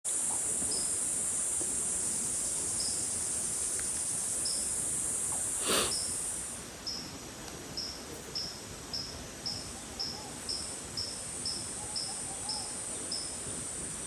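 Insect chorus in a tropical forest: a steady high-pitched buzz that fades about halfway through. Over it a short chirp repeats, sparse at first and then about twice a second. A single brief click comes near the middle.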